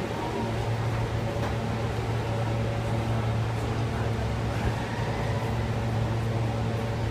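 Steady low hum of a New York City subway car standing in the station with its doors open, its on-board equipment and ventilation running while the train idles.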